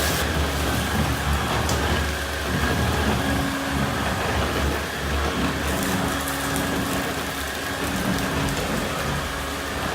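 Volta Electronic 507 vacuum cleaner running steadily, its motor and airflow making an even rushing noise with a faint high whine.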